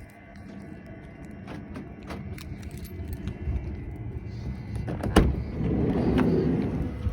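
Footsteps and small clicks of handling, then a sharp latch click about five seconds in and a louder rolling, scraping noise as a van door is opened.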